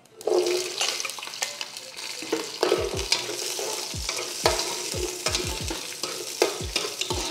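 Peeled shallots sizzling in hot oil in a non-stick pot, the sizzle starting as they drop in, while a metal spoon stirs and scrapes them around with repeated short knocks against the pot.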